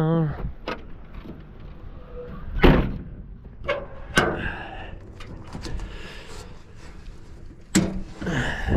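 Sheet-metal side access door on a Cat 320C excavator being swung and latched shut, giving several sharp metal knocks and bangs. The loudest comes about a quarter of the way in.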